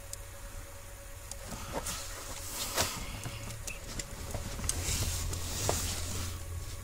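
Small clicks and rustling from hands and a small screwdriver working a wire's pin into a plastic wiring-harness connector, over a faint steady hum.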